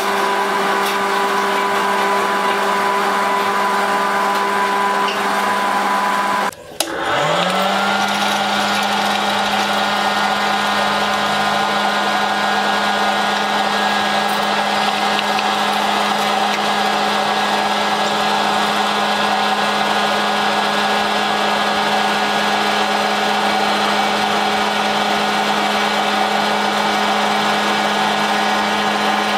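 Touchline electric hot-air snack maker's fan motor running with a steady hum and rush of air. About six and a half seconds in it cuts out briefly, then starts again, its pitch rising as it spins back up to speed.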